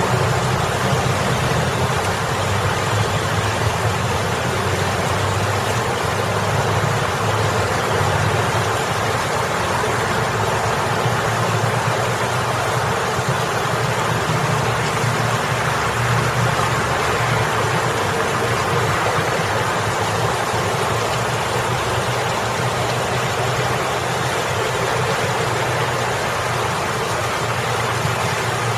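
Water from a boulder fountain spilling and splashing in a steady rush, with the low rumble of road traffic engines under it, stronger in the first part and then easing off.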